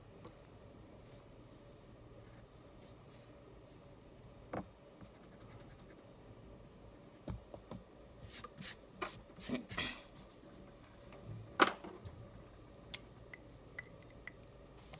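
A stick eraser rubbing on drawing paper: a run of about a dozen quick scratchy strokes about halfway through, after a quieter stretch with a few faint taps. A single sharp click comes a little later.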